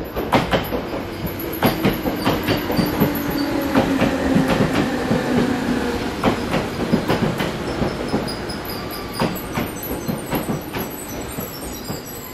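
Passenger train running, its wheels clicking irregularly over the rail joints over a steady rumble, heard from inside the carriage. A faint low tone slides slowly downward during the first half.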